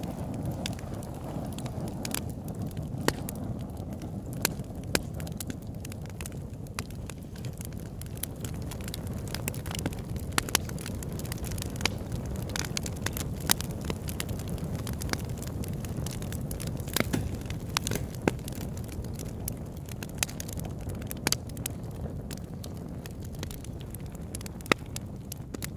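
Campfire burning: a steady low rush of flames with frequent sharp crackles and pops, scattered irregularly.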